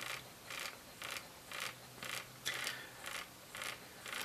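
Pager vibration motors on a tiny BEAM-style robot buzzing, rattling the robot across a wooden desk in short bursts about twice a second as it turns around.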